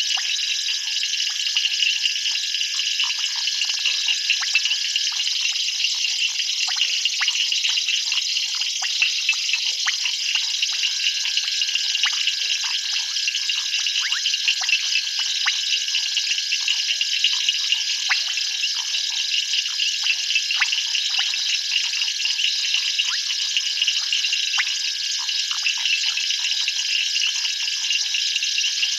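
Night chorus of insects and frogs: a dense, steady high-pitched trilling, broken by many short clicking calls, with one steady high note that drops out for a few seconds near the start.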